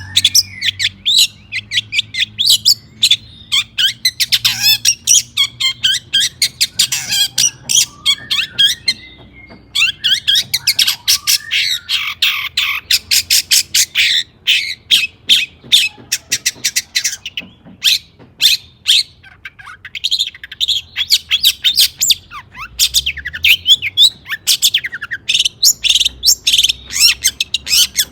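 Long-tailed shrike singing energetically: a fast, continuous string of sharp, harsh chattering notes with some gliding whistled notes among them, broken by a short pause about nine seconds in.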